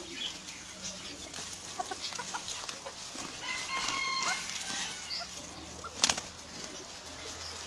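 A rooster and another bird scuffling, with scattered wing flaps and scrapes. A short, steady bird call sounds about midway, and a single sharp wing beat or strike about six seconds in is the loudest moment.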